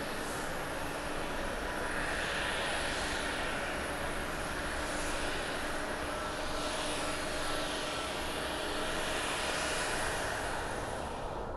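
Airbus A350-941's Rolls-Royce Trent XWB jet engines running loudly as the airliner rolls out after touchdown, a steady rushing noise with a hiss that sweeps up and down as the jet moves past.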